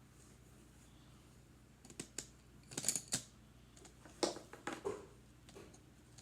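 Colored pencils clicking and rattling against each other as they are picked through and handled: a few clusters of light, sharp clicks.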